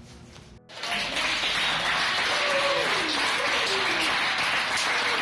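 A group of young players and coaches clapping their hands together, with a few voices cheering over it. It starts suddenly about a second in.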